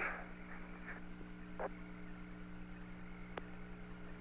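Steady electrical hum and faint static on the Apollo air-to-ground radio channel between transmissions, with a short blip at the start, another about a second and a half in, and a sharp click about three and a half seconds in.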